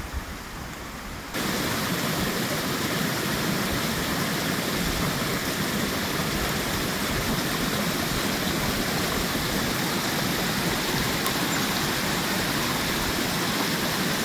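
Small spring-fed forest brook running and splashing steadily over stones and roots, as a continuous rush of water. It comes in abruptly louder about a second in, after a fainter hiss.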